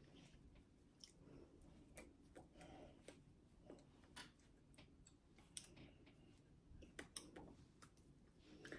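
Near silence: faint room tone with scattered soft clicks and taps at irregular times, the small sounds of a person signing.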